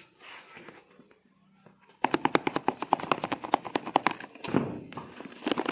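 A cardboard parcel sealed with clear packing tape being handled, with light rustling, then rapid crackling starting about two seconds in and again near the end as the tape is worked at.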